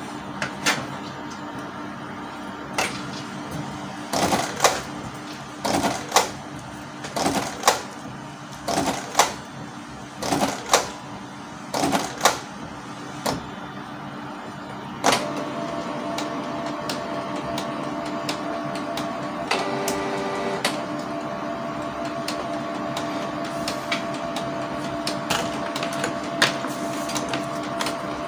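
Canon G1010 inkjet printer mechanism working through a print-head cleaning cycle. For about fifteen seconds it gives a string of separate clicks and clunks, then settles into a steady motor hum with a high whine over it.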